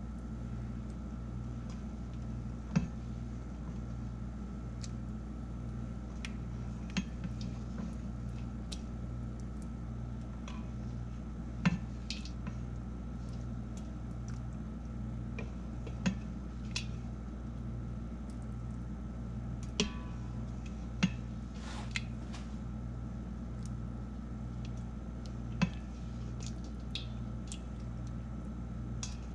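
Spoon knocking and scraping against the stainless steel inner pot of an Instant Pot while scooping hog maw from the sauce: a handful of short, sharp clicks spread out over a steady low hum.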